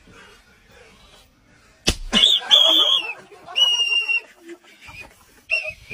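A sharp snap or smack about two seconds in. Right after it come two shrill, steady whistle blasts of about half a second each, and a short third blast near the end.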